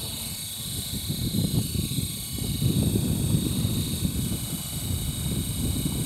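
Radio-controlled model helicopter lifting off the ground at a 1200 rpm head speed: its rotor blades beat the air in a steady fluttering rumble under a steady high whine from the motor and gears.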